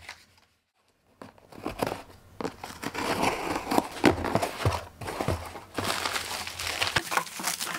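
A small cardboard shipping box being opened by hand, starting about a second in: flaps pried up and pulled open, with cardboard rustling, scraping and crackling and many sharp little clicks.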